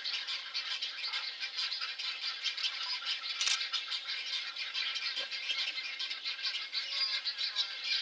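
A dense, continuous wildlife chorus of high, fast rattling and chirping calls, with one sharper click about three and a half seconds in.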